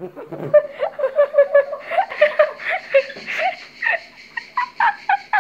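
A woman laughing hard in a fast run of high giggles, about five a second, climbing higher in pitch near the end.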